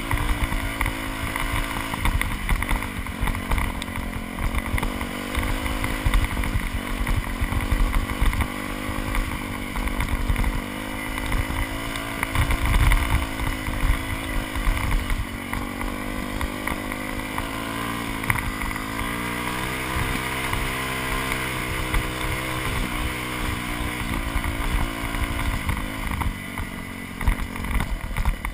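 Yamaha YZ426F dirt bike's four-stroke single-cylinder engine running under load while riding. The revs rise and fall repeatedly with the throttle. It is heard from a helmet-mounted camera.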